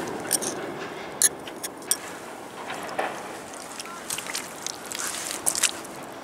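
Footsteps on wet shingle and mud of a river foreshore: scattered sharp clicks of stones underfoot over a steady background hiss.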